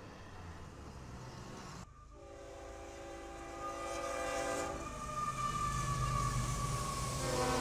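Faint vehicle and road noise at first. About two seconds in, a freight locomotive's horn sounds a multi-note chord for about three seconds. The rumble of the passing train then grows louder, with a high steady tone over it.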